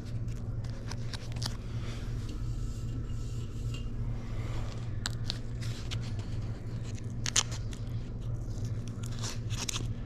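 Vinyl decal and its backing paper being handled and pressed on: scattered crinkles, crackles and scrapes, with one sharper click about seven seconds in, over a steady low hum.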